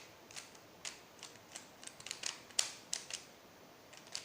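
Plastic Rubik's cube layers being turned by hand: a quick, irregular run of sharp clicks as a move sequence is worked through.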